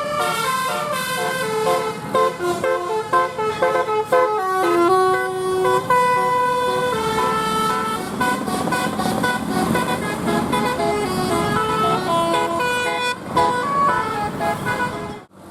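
Bus telolet musical horn playing a quick tune of stepped notes, one after another, over the bus's engine running underneath. The sound drops out sharply near the end.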